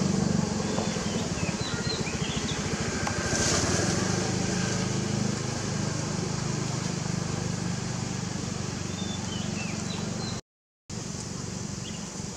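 Steady low hum of a running engine. A few short, faint high chirps come about a second in and again near ten seconds.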